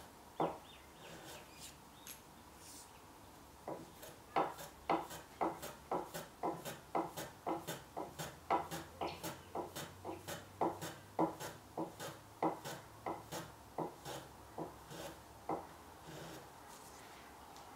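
Small hand plane pushed back and forth along a wooden trimming jig, shaving the end of a hoop pine kumiko strip. It makes short, sharp strokes about two a second, with a pause from about one to four seconds in.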